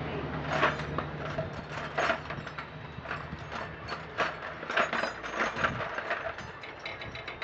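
Ratchet wrench clicking in short, irregular strokes, with metal clinks, as nuts are turned on a riding lawn mower's engine.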